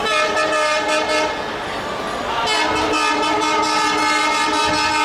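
Diesel locomotive's horn sounding two blasts: a short one of just over a second, then a longer one of about two and a half seconds that cuts off suddenly.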